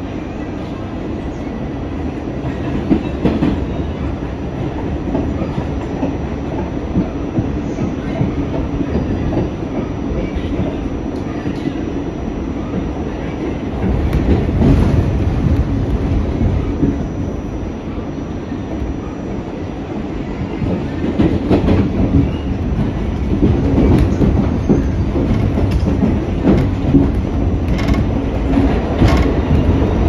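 R46 subway car running along the track, heard from inside: a steady rumble of wheels on rail with scattered clicks and knocks over the rail joints, louder from about halfway through.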